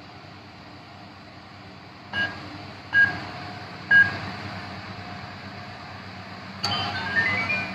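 A toy ATM piggy bank's electronic keypad beeping three times, about a second apart, as its buttons are pressed, then a short electronic tune of tones stepping upward in pitch as a finger is pressed on its fingerprint pad near the end.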